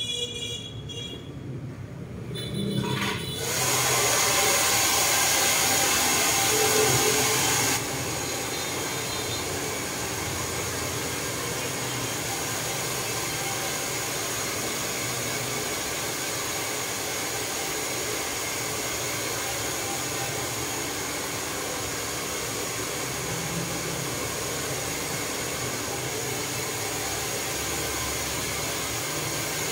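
Handheld hair dryer blowing on a customer's hair: it comes on a little over three seconds in and runs loud, drops to a lower steady level about eight seconds in, and keeps blowing evenly.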